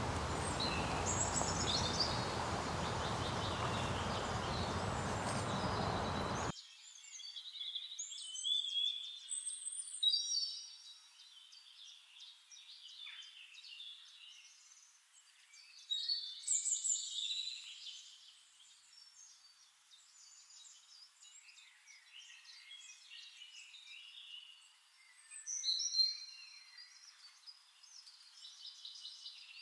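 Wild birds chirping and singing, many short high calls and trills. For about the first six seconds a steady rushing noise lies under them, then it cuts off suddenly and only the bird calls remain, thin and high.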